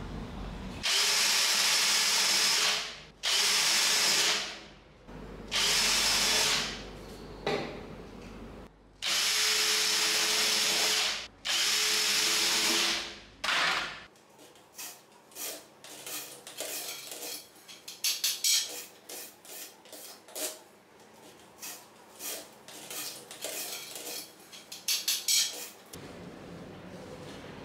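A cordless drill runs in five long bursts of a couple of seconds each, with a steady motor whine. After that come many light, irregular clicks and knocks.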